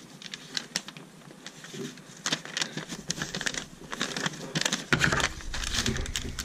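Paper Lego instruction booklet handled by cotton-gloved hands and its page turned over, rustling and crinkling with scattered light clicks. A low rumble of handling joins in about five seconds in.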